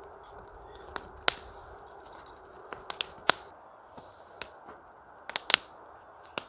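Campfire crackling: scattered sharp pops at uneven intervals over a faint steady hiss.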